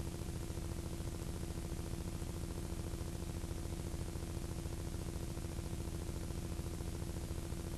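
Steady low electrical hum with a buzz and an even layer of hiss, with no programme sound over it: the noise floor of an old VHS tape playing through its blank end credits.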